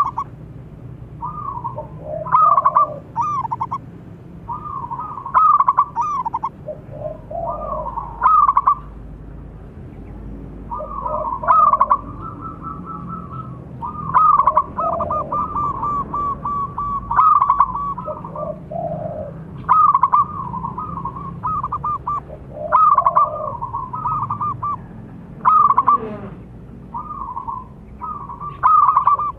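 Zebra doves (perkutut) cooing loudly in repeated phrases of quick staccato notes, the loudest phrase coming about every three seconds, with other calls in between.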